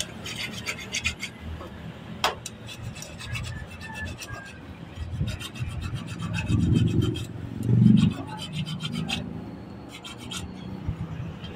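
Small hand file scraping the cut end of a metal radiator bypass tube in quick, short strokes, coming in several spells with pauses. A sharp click about two seconds in, and a louder low rumble from six to eight seconds in.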